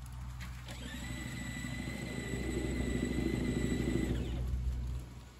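Electric motor of a child's battery-powered ride-on toy vehicle running with a steady high whine for about three seconds, starting about a second in and stopping near the four-second mark.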